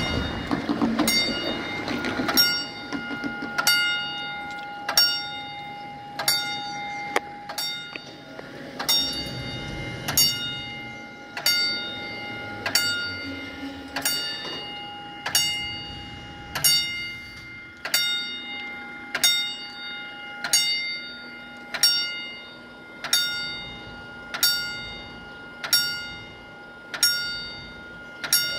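Level-crossing warning bell sounding from the horn loudspeaker on the barrier mast: a sharp ding about every 1.3 seconds, each strike ringing on with several tones. A low rumble sits under the first couple of seconds.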